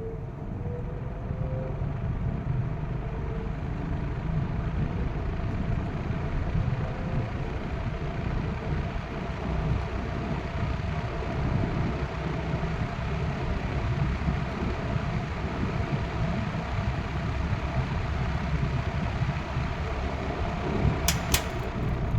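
Monarch Aire 20-inch two-speed box fan starting up on low speed. The motor hum rises in pitch over the first few seconds as the square blades come up to speed, then settles into a steady rush of air. There are a couple of sharp clicks near the end.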